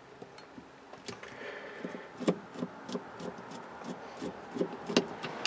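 Irregular small metallic clicks and taps of a magnetic screwdriver working against the metal plates inside an automotive distributor, fishing out a small screw. They become more frequent from about a second in.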